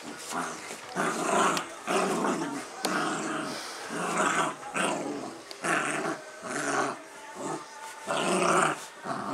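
Dogs growling in play over a rope toy, a string of short growls about one a second.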